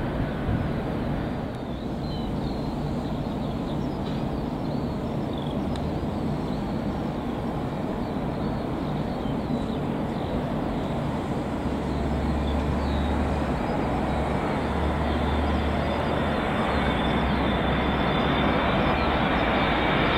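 Jet airliner engines: a steady rumble that grows louder over the last few seconds, with a high whine coming in, as a Boeing 787-8 comes in on final approach to land.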